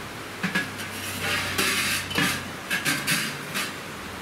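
Steel flue pipe sections of a wood-burning firebox stove clinking and scraping against each other and the stove as they are pulled out of the firebox and stacked, in a run of separate metallic clatters.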